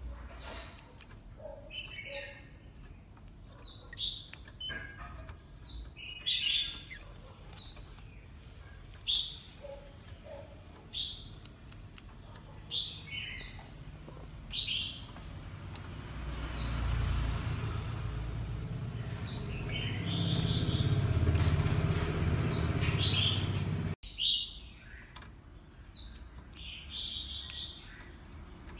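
Caged Oriental magpie-robin calling: short, sharp notes, each sliding down in pitch, repeated every second or two. About halfway through, a louder low rumble rises under the calls for several seconds and cuts off suddenly.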